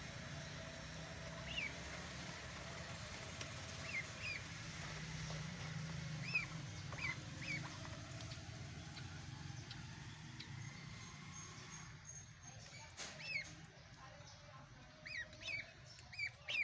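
Duckling peeping: about a dozen short, high, falling chirps, singly and in pairs. A low steady hum runs underneath and drops away about twelve seconds in.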